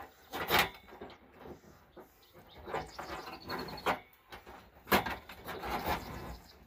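Irregular scraping and rustling, with a few louder scrapes about half a second, four and five seconds in, as young striped skunks shuffle and claw about inside a trap.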